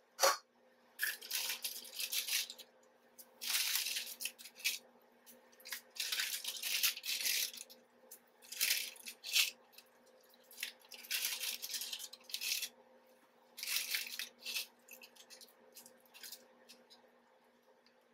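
Plastic instant-noodle packets crinkling and tearing open in repeated irregular bursts, with a sharp knock at the very start.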